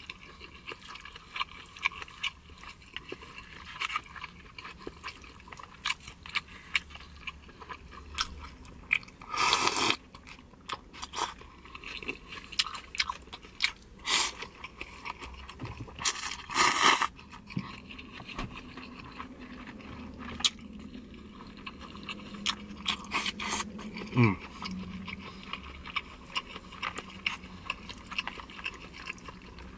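Close-up eating of pho: wet chewing and mouth clicks, with a few louder slurps of rice noodles, the strongest about ten and seventeen seconds in.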